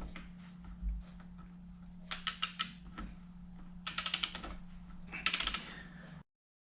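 Ratchet wrench clicking in three short bursts of rapid ticks as a fork fastener is run in, over a steady low hum.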